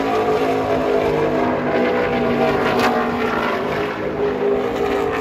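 NASCAR Xfinity stock car's V8 engine running past on the speedway, a steady droning note with several tones held at a fairly even pitch.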